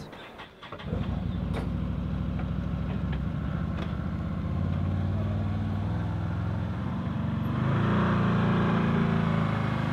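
Side-by-side UTV engine running as it drives by, starting about a second in and getting louder near the end as it passes close.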